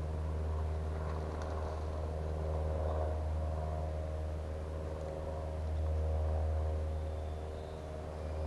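Steady low engine rumble with a faint hum, swelling slightly about two-thirds of the way through, like a motor running some way off.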